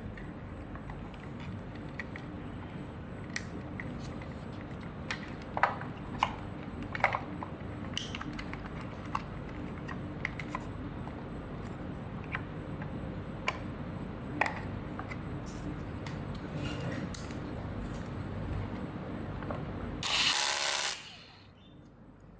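Plastic parts of a robotic vacuum cleaner clicking and knocking as they are handled and fitted together during assembly, over a steady low hum. Near the end comes a loud rushing burst of about a second, after which the hum stops.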